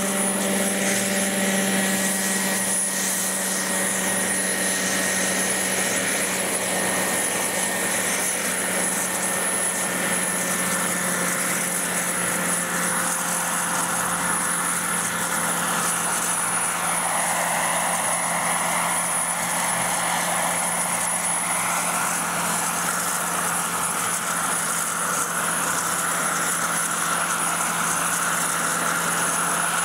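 Radio-controlled scale model helicopters running, one of them an Agusta A119 Koala model: a steady high whine over a steady low rotor hum. The sound swells in the middle as the Koala model lifts off into a hover.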